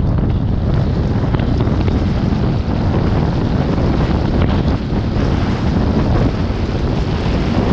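Wind blowing across the microphone: a loud, steady noise, heaviest in the low end, with no break.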